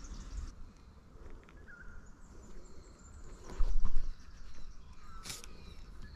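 Handling noise from a baitcasting rod and reel held with the line snagged: a low thump a few seconds in and a sharp click about five seconds in, over a low rumble, with a faint bird chirp.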